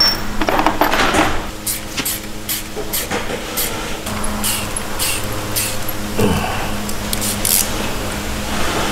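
Steel threading die being turned by hand onto a rusted M8 engine-mount bolt to chase its damaged threads: a series of short metallic scrapes and clicks, about two a second, over a steady low hum.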